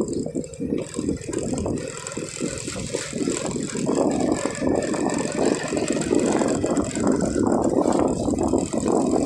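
Small motorcycle running at low road speed, with a fast mechanical rattle over the engine noise.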